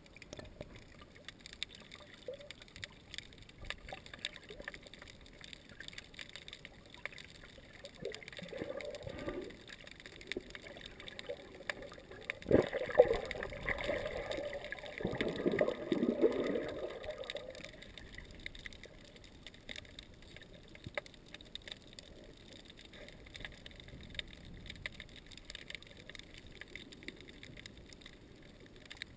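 Muffled underwater sound picked up by a submerged camera in shallow sea water: faint water movement and gurgling. About twelve seconds in there is a sharp knock, followed by a few seconds of louder gurgling and swirling water.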